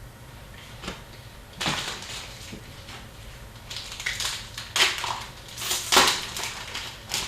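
Irregular crinkling and rustling as packs of trading cards and their wrappers are handled and opened, in a few short bursts.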